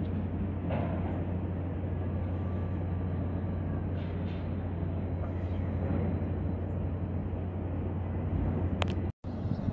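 Steady low mechanical hum over rumbling background noise, with a brief dropout near the end.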